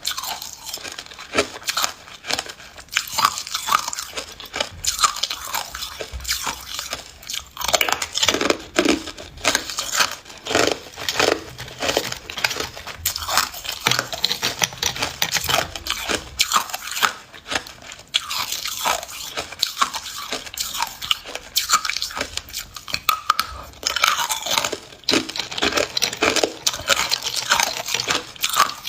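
A person biting and chewing hard ice, a dense, irregular run of sharp crunches close to the microphone.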